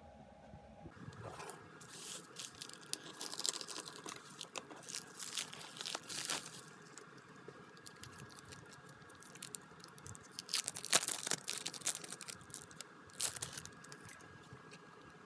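Mail packaging being torn open and crinkled by hand, in irregular bursts of tearing and rustling. The bursts are loudest around a few seconds in and again past the middle.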